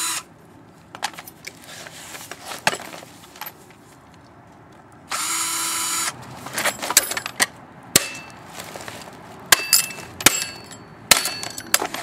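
Power drill motor running steadily for about a second midway, backing out a hex screw from a sump pump's cast aluminum housing. It is followed by a run of sharp metallic clicks and knocks as the loosened parts are handled.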